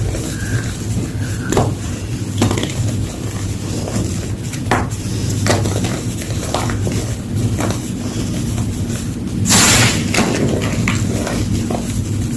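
Blocks of gym chalk being crushed, giving irregular crisp cracks and crackles, with a louder crumbling rush about nine and a half seconds in. A steady low hum runs underneath.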